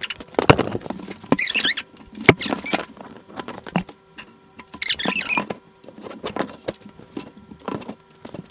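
Books being handled and propped up on a wooden desk: pages and covers flapping and rustling in short scratchy bursts, with several knocks against the desktop.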